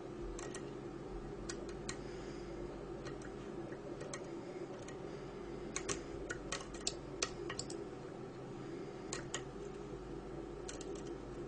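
Small metallic clicks and ticks of a lock pick working the telescopic pins of a Mul-T-Lock dimple cylinder under tension, scattered and irregular, with a quick run of clicks about six to seven seconds in.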